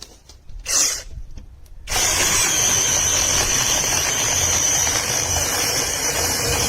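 Cordless 6-inch brushless mini chainsaw: a short loud burst just under a second in, then from about two seconds in the motor and chain run steadily at full speed with a high whine.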